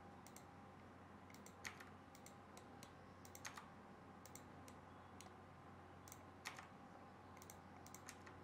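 Faint, scattered clicks of a computer keyboard and mouse, a few short taps a second or more apart, over a low steady hum.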